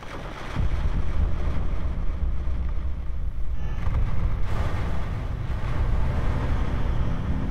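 Dense, noisy ambient drone from processed guitar, with a deep low rumble that swells up about half a second in and then holds.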